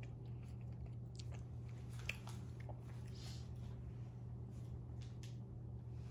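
Quiet chewing of a mouthful of blueberry streusel loaf cake, with a few light, short clicks scattered through, over a steady low hum.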